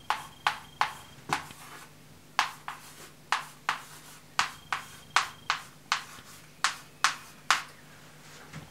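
Chalk tapping and scratching on a blackboard as capital letters are written: a run of short, sharp strokes, two or three a second, that stops shortly before the end.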